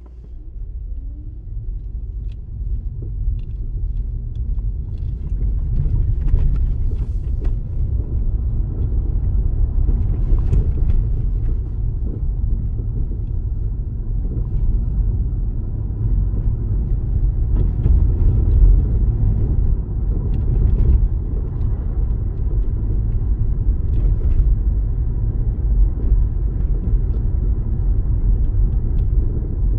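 Car engine and tyre noise heard from inside the cabin, a low rumble that builds as the car pulls away from the traffic lights and then holds steady while driving.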